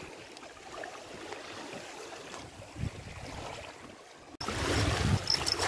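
Wind buffeting the microphone and water lapping at the shore, fairly quiet. About four seconds in the sound jumps abruptly to a louder wind rumble.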